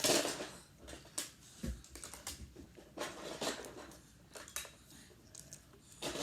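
Irregular light clicks, taps and rustles of small objects being handled close to the microphone.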